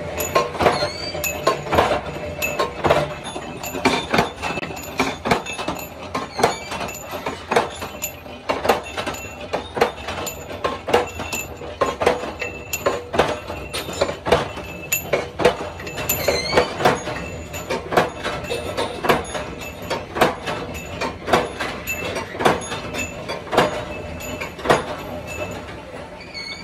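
Flywheel-driven mechanical power press shearing steel bars into short pieces: a sharp metallic clank about once a second, over a steady machine hum.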